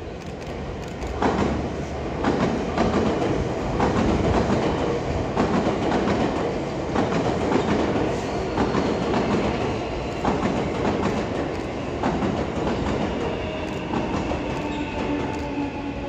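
Nankai 12000-series 'Southern' limited express train passing close by, its wheels clacking over the rail joints in a quick run of clicks from about a second in. A steady high ringing tone joins near the end as the train moves off.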